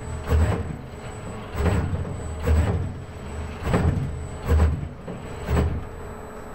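ABB industrial robot arm's servo motors and gearboxes whirring in a series of short surges, about one a second, as the arm makes small repeated moves.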